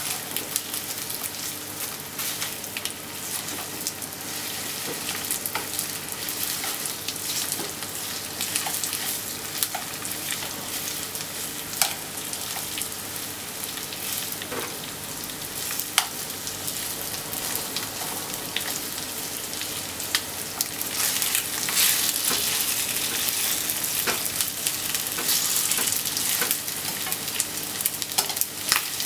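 Marinated chicken pieces sizzling in a nonstick frying pan as they are stirred and turned with wooden utensils, which click and scrape against the pan now and then. The sizzle grows louder about two-thirds of the way through.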